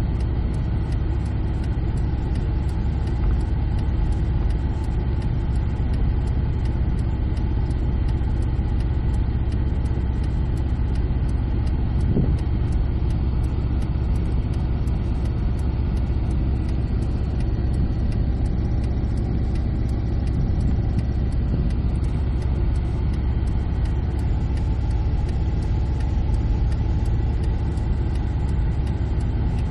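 Car engine running at low speed as the car creeps along at walking pace, heard from inside the cabin as a steady low rumble.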